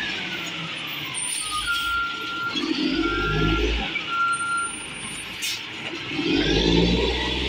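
Diesel engine of a 1999 Peterbilt 320 garbage truck running and revving twice as the truck manoeuvres. A reversing alarm beeps three times about a second apart, and a brief air hiss comes about halfway through.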